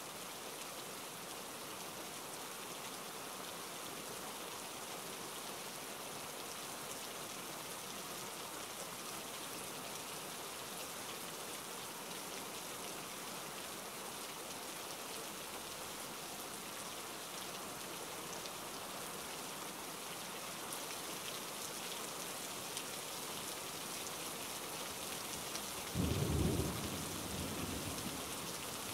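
Steady rain falling, with a brief low rumble of thunder near the end.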